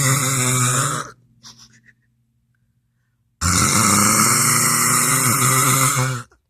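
A woman snoring loudly: one long, rough snore ends about a second in, then after a pause of two seconds or so comes another long snore lasting nearly three seconds.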